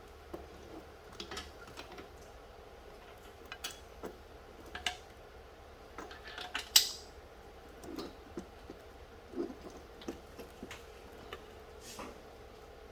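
Scattered light metallic clinks and knocks as a fabricated intake manifold is lowered and set onto an LS engine's cylinder heads; a sharper clink a little past halfway.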